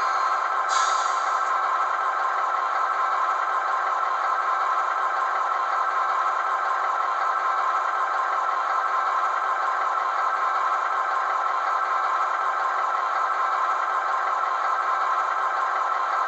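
Diesel engine sound of a model class 298 diesel locomotive's DCC sound decoder, running steadily through the model's small loudspeaker, thin with no deep bass. A short hiss sounds about a second in.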